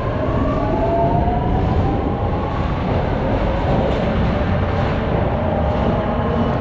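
Paris Metro MF88 steel-wheeled train accelerating: its motor whine climbs slowly in pitch over a steady rumble of the train running on the rails.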